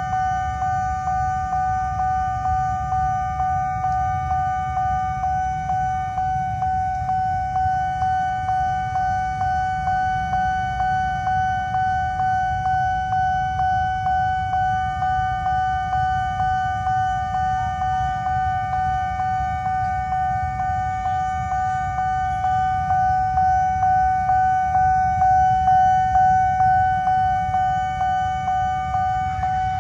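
Railway level-crossing warning bell ringing continuously: a steady electronic ding repeated about twice a second, with the low rumble of waiting traffic underneath.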